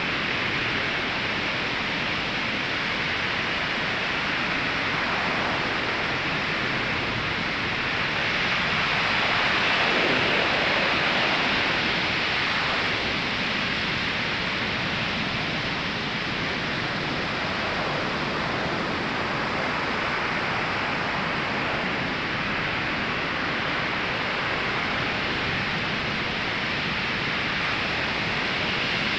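Ocean surf: a steady rush of waves breaking and washing ashore, swelling louder as one wave breaks about ten seconds in.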